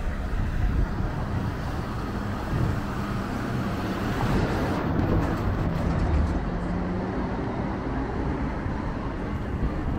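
Minibus engine running close by as it moves along the street, a low steady hum over street traffic noise.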